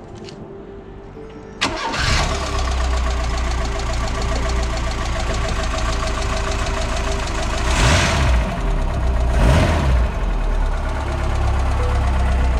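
Ford Escort RS2000's 2.0-litre four-cylinder engine, freshly rebuilt with a rebuilt carburettor, catching at once about a second and a half in (it fires on the button), then running steadily with a low rumble. The engine note swells twice briefly in the middle.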